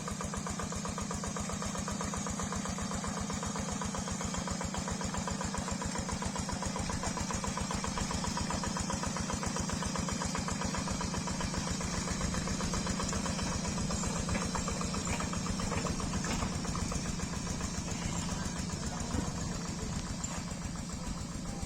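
Single-cylinder Yanmar diesel engine of a Quick G3000 Zeva hand tractor running steadily with a rapid, even firing beat, a little louder in the middle.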